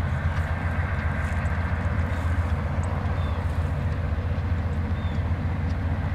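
CSX GE Dash 8-40CW diesel locomotive approaching, a steady low engine rumble.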